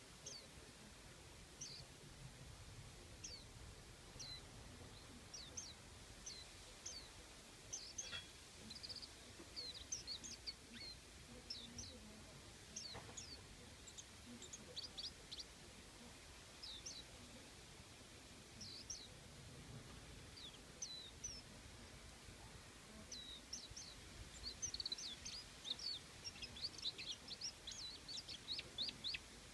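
Faint, short, high chirps of small songbirds, each a quick falling note, scattered throughout and coming thick and fast near the end, over faint outdoor background noise.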